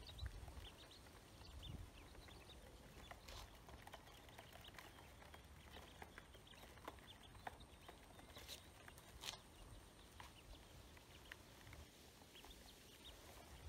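Faint, scattered ticks and taps of ducklings pecking at grain in a plastic basin, with a few soft, brief peeps.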